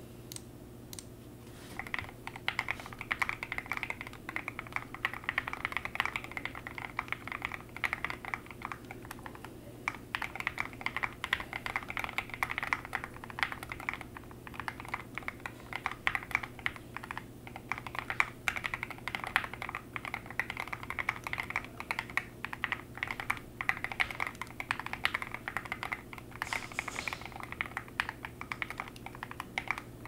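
Fast continuous typing on a Louise Alice-layout mechanical keyboard with a forged carbon-fibre plate, NovelKeys Silk linear switches and SA-profile keycaps: a dense, steady stream of key clacks that starts about two seconds in, after a few scattered clicks.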